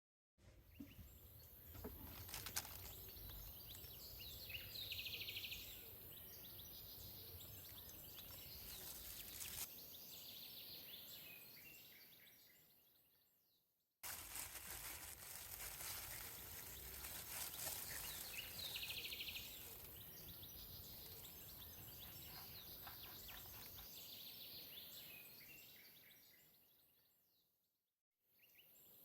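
Faint background ambience with small bird-like chirps over a steady hiss: the same roughly 14-second stretch plays twice, fading out each time.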